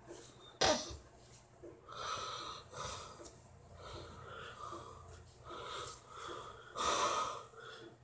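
A person breathing heavily and wheezily, with a breath about every second. A sharp knock comes just under a second in.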